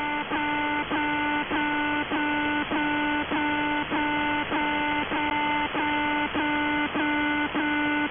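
Russian military shortwave station 'The Alarm' sending its buzzing marker tone over a single-sideband receiver. The tone is steady, broken by a brief click-like dropout about every 0.6 s, giving an even pulsing rhythm.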